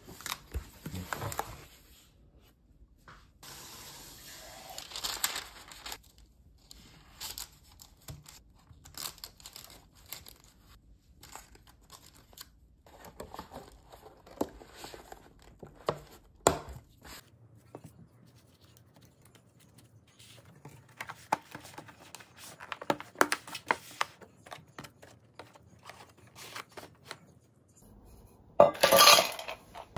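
Plastic clamshell food trays and packaging handled by gloved hands: scattered crinkling, crackling and clicking of the thin plastic, in short irregular bursts. A louder burst comes near the end.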